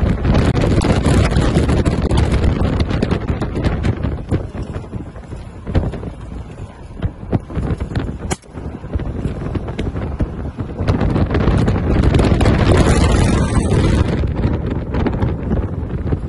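Wind buffeting the microphone from a vehicle moving across open desert, with the vehicle's rumble underneath. The rush eases for several seconds midway, then comes back strong.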